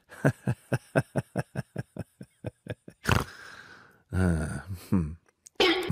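A small kitten lapping milk from a glass bowl: quick wet laps about four a second. About four seconds in there is a brief low voice-like sound between the laps.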